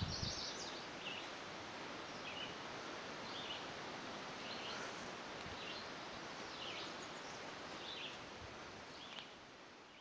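Birds chirping: short calls repeating about once a second over a steady background hiss.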